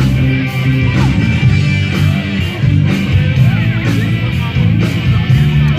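Live rock band playing, with guitar, bass and drums.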